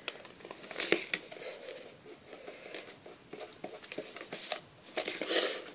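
Handling sounds of a metal steelbook Blu-ray case being turned over in the hands: scattered soft taps, scrapes and rustles, with a longer rustle near the end.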